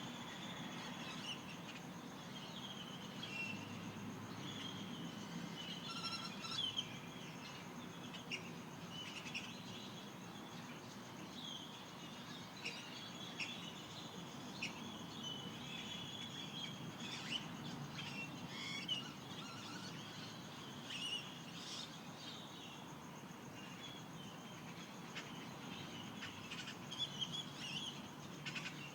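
Dawn chorus of Mojave Desert birds: many short chirps and whistled notes scattered throughout, over a steady background hiss.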